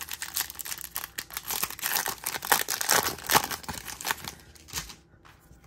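Foil booster-pack wrapper crinkling and tearing as it is ripped open and the cards are pulled out, the crackling fading out about a second before the end.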